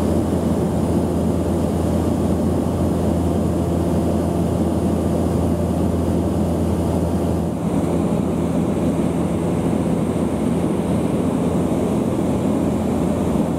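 Cabin noise of a Cessna 208B Grand Caravan in flight: the single turboprop engine and propeller droning steadily. About halfway through, the deepest part of the hum drops away and the drone changes slightly in tone.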